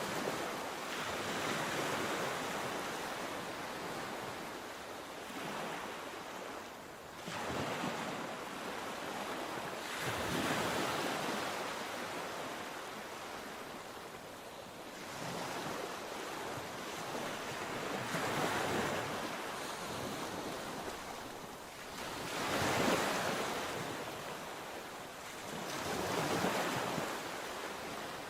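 Sea waves breaking on the shore one after another, each wash swelling and falling away every few seconds.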